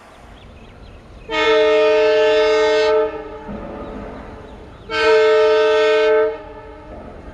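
Air horn of a WDP4D (EMD GT46PAC) diesel locomotive sounding two long blasts about two seconds apart. The approaching train rumbles underneath and between them.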